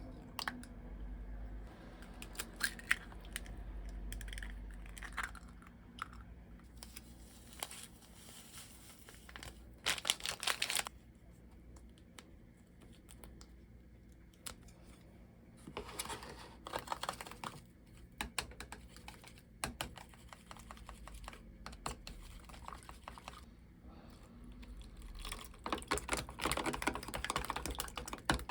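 Typing on a computer keyboard in intermittent runs of quick clicks, with some rustling and handling noise between them.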